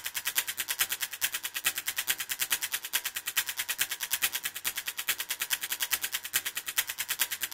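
Rapid, evenly spaced clicking at about ten clicks a second, crisp and high-pitched with little low end, steady throughout: a ticking sound effect on the film's opening titles.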